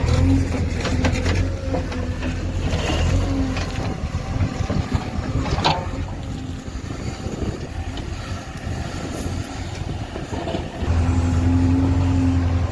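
JCB 3DX backhoe loader's diesel engine running. It falls to a lower, quieter note through the middle and picks up again near the end. There is a sharp metallic knock about halfway through.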